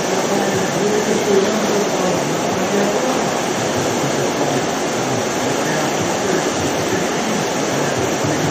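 Steady rushing of whitewater pouring through an artificial slalom channel, an even noise with no breaks.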